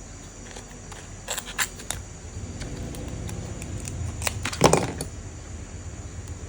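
Light clicks and clatter of small tools and phone parts being handled on a repair bench, with the loudest knock about two-thirds of the way through, over a low steady hum.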